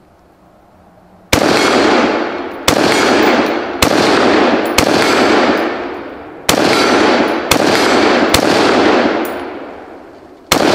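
Daniel Defense DDM4 V7 AR-15 rifle fired semi-automatic, about eight shots at roughly one a second starting just over a second in, each with a long echo tail. Some shots are followed by short pings of bullets striking steel target plates.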